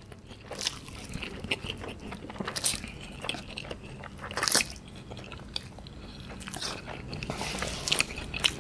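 A man eating mouthfuls of cheesy Samyang Cream Carbonara instant noodles: close chewing with wet mouth clicks and smacks throughout. A few louder bursts come as noodles are drawn into the mouth, about a third of the way in, at the middle and near the end.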